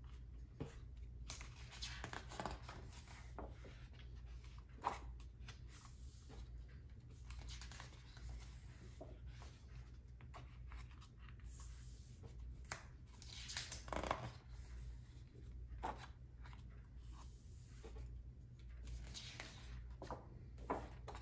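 Pages of a large, heavy-paper LP booklet being turned by hand: soft swishes and rustles of paper sliding and flipping, with a few light taps and a louder flutter about two-thirds of the way through. A steady low hum sits underneath.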